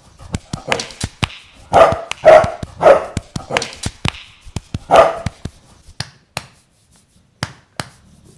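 English bulldog barking, about six barks in the first five seconds, over many sharp clicks. Near the end only a few sharp clicks remain.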